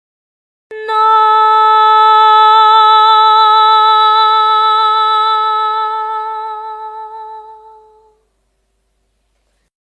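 A voice singing one long held note with a slight vibrato, starting abruptly and slowly fading out over about seven seconds.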